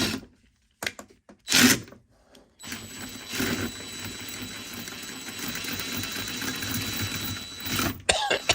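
Impact wrench driving a car's scissor jack screw through a socket adapter: two short blips, then a steady run of about five seconds as the jack is cranked, then a couple more short blips near the end.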